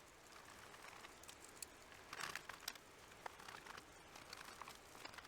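Near silence with faint small clicks and a brief rustle about two seconds in, from hands handling Commodore 64 parts.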